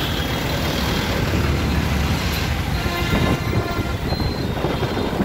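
City bus engine and traffic noise heard from inside the bus: a steady low rumble.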